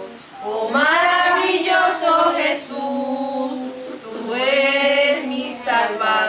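Women and young children singing a Spanish-language Christian children's song together, with long held notes between short breaks for breath.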